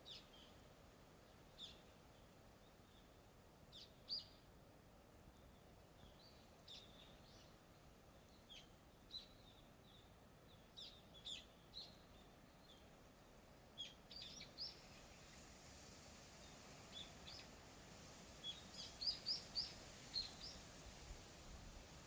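Wild birds chirping on and off with short, high calls, including a quick run of several chirps about three-quarters of the way through, over a faint steady hiss that grows a little louder about two-thirds in.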